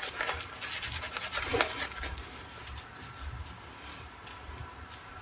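Shaving brush rubbing lather onto a stubbly cheek in soft, uneven strokes, mostly in the first two seconds, then fainter.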